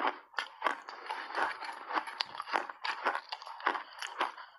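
Refrozen block ice being bitten and chewed close to the microphone: a fast, steady run of sharp crunches, about three a second.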